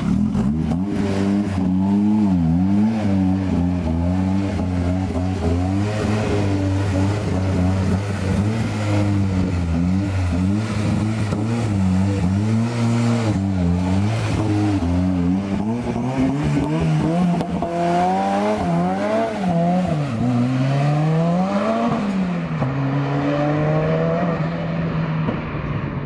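Ford Escort RS Cosworth race car's turbocharged Cosworth YB four-cylinder engine revving up and easing off again and again as the car is driven, its note rising and falling. It is running after a misfire fix.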